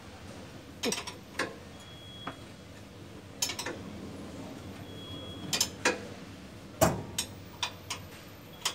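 Irregular metallic clicks and clinks of hand tools and parts knocked against the drive machinery in a travelator's open pit, about a dozen sharp ticks spaced unevenly, the loudest about seven seconds in.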